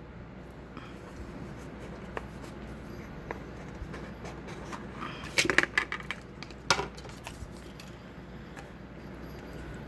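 A crystal stretch bracelet being worked out of its box: scattered small clicks and handling noises, with a burst of sharp clinks about five and a half seconds in and another near seven seconds.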